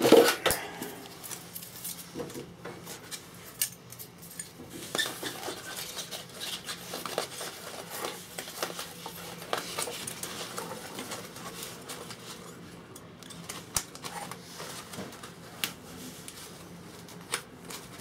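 Irregular light clicks, clinks and rustles of hands fastening a strap band around an absorption fridge's insulation blanket.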